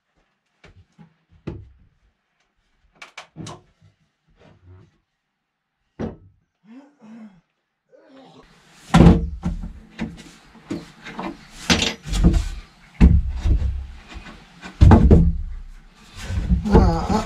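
Wooden knocks and thuds of 2x4 lumber being handled and knocked into the stud framing of a plywood chicken coop: a few scattered light knocks at first, then from about halfway a run of loud, irregular heavy thuds.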